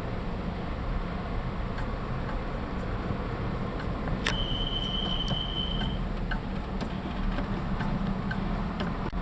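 Steady low rumble of a vehicle driving: engine and tyre noise on a paved road. About four seconds in, a sharp click is followed by a single high steady tone lasting a second or two.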